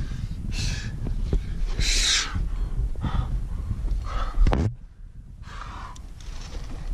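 A climber breathing hard, in loud gasping breaths about one a second, from heavy exertion at about 6000 m altitude with a heavy pack. The breaths pause briefly a little past the middle, over a low rumble.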